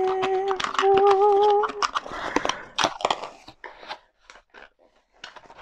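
A woman's voice humming a held note that turns into a short wavering tune for about two seconds. Then a few seconds of small clicks and rustling as string lights and their packaging are handled and put back away, fading out near the end.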